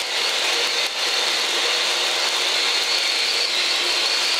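NRD cold pyro spark fountain spraying sparks with a steady, even hiss.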